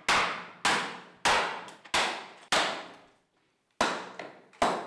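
Hammer blows on an elephant skull, cutting into the bone to take a DNA sample from inside. Sharp strikes come about every half second, each ringing out briefly, with a pause of over a second about three seconds in.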